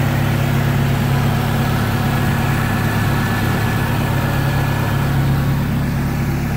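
VW Golf 3 petrol four-cylinder engine idling steadily on LPG, with an even, unchanging hum.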